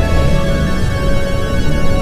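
Background music with steady sustained tones and a moving bass line, dark and suspenseful in mood.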